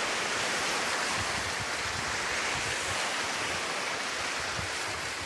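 Small sea waves breaking and surf washing over a sandy shore: a steady, even hiss.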